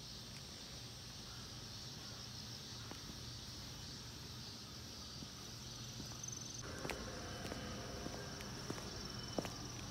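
Insects chirring steadily in the garden vegetation. About seven seconds in, footsteps of sneakers on concrete stepping stones begin, with scattered light taps and scuffs.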